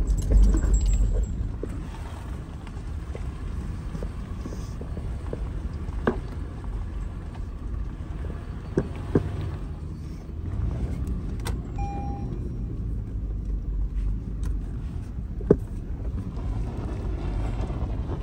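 A car driving, with a steady low rumble throughout and a handful of sharp clicks and knocks at scattered moments, loudest in the first second.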